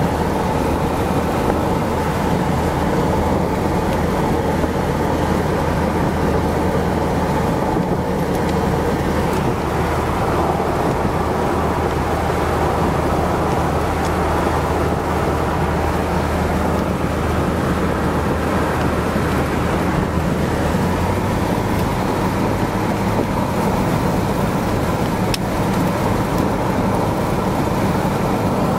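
Steady road, wind and engine noise heard from inside an open convertible cruising at highway speed. The low engine drone shifts slightly in pitch about two-thirds of the way through.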